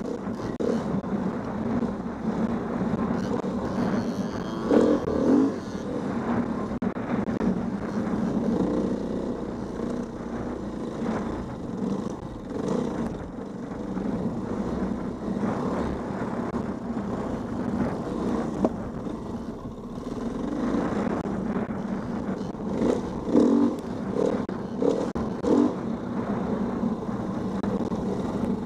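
Dirt bike engine running under load on a rough trail, revs rising and falling as the throttle is worked, with short sharp surges of revs about five seconds in and several more near the end.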